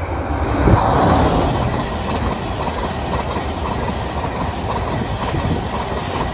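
LNER InterCity 225 electric train, a locomotive hauling Mark 4 coaches, passing close at speed with a rushing wheel-and-rail noise and rhythmic clatter over the rail joints. It is loudest about a second in as the head of the train goes by, then holds steady while the coaches run past.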